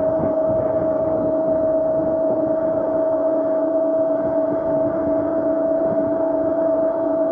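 Razor SX500 electric dirt bike's motor whining at one steady pitch as it cruises at constant speed, over a rushing low rumble of wind and tyre noise.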